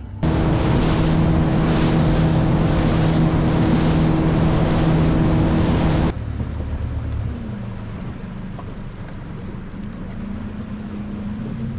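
Motorboat engine running at speed, with wind and water rushing past over steady engine tones. About six seconds in it cuts abruptly to a quieter, slower engine note that dips and then slowly rises in pitch.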